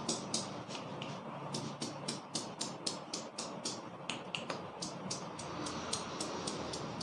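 Barber's hands tapping and slapping rhythmically on the head in a head massage, a quick, even run of sharp pats about five a second.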